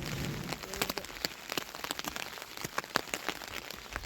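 Rain falling, with many separate drops hitting a surface in quick, irregular clicks.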